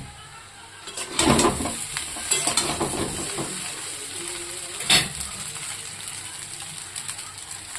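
Food sizzling in a pan while a utensil stirs and scrapes it, with a run of clattering strokes and one sharp knock against the pan about five seconds in.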